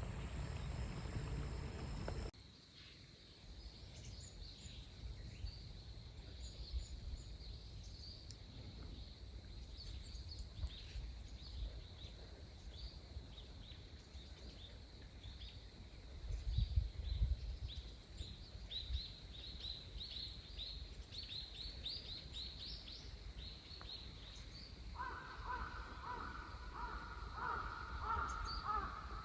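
Birds calling outdoors over a low wind rumble: a run of quick, high chirps, then a longer, lower pitched call near the end.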